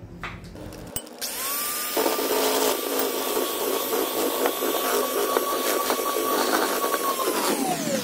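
KLAZ electric hand mixer starting up about a second in. Its motor whine rises quickly to a steady high pitch while the beaters churn through powdered sugar and milk to make a glaze. Near the end the pitch drops steeply as the mixer slows.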